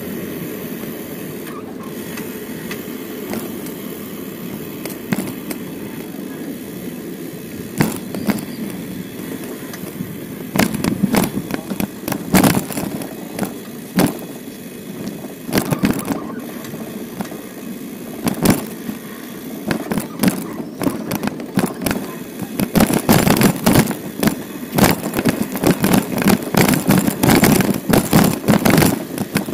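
Bicycle ride in city traffic: steady rolling noise, then from about eight seconds in, frequent knocks and rattles from the bike that grow denser near the end.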